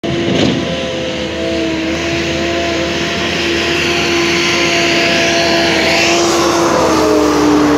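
Bobcat skid-steer loader's diesel engine running steadily at high revs as it drives over fresh asphalt, with a rushing hiss that swells in the middle. The engine pitch dips slightly near the end.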